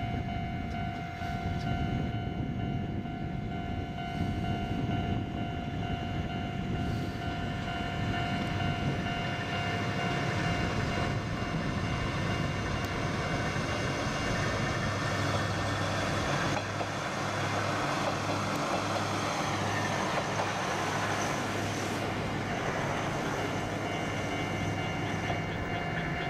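A Kominato Railway KiHa 200 two-car diesel railcar running, its engine drone steady with a throbbing low hum in the middle stretch. A tone falls in pitch about 20 seconds in, before the sound eases near the end.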